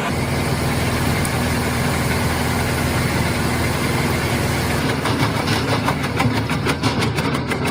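Engine of a wood-processing machine running steadily under power. About five seconds in, a rapid series of sharp cracks sets in over it, wood being cut or chipped.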